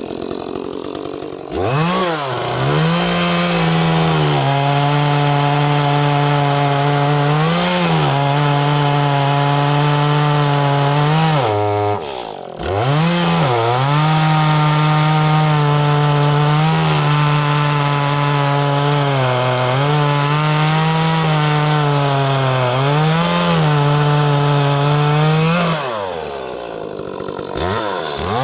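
Small Echo two-stroke chainsaw revved up from idle and cutting through a log under load, its pitch sagging a little as the chain bites. It makes two long cuts with a brief drop in revs between them, then falls back to idle near the end.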